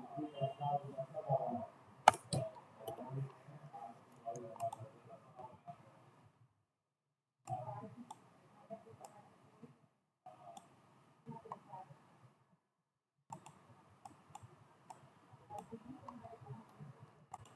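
Computer mouse clicking: scattered single clicks, the sharpest about two seconds in, over faint room noise that cuts in and out.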